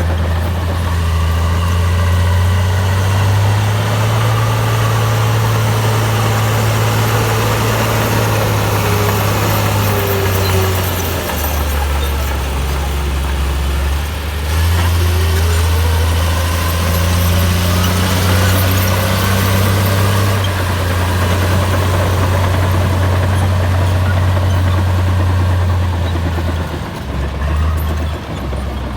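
Komatsu bulldozer's diesel engine running under load, its note dropping for a few seconds near the middle and again near the end, with a faint rising whine about halfway through.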